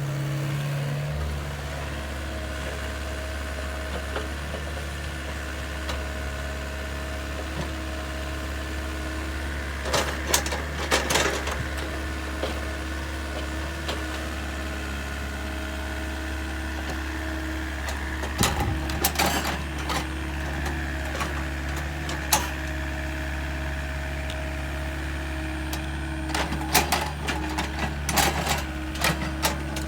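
Small electric motor of a toy excavator running with a steady hum, broken several times by short bursts of clicks and rattles.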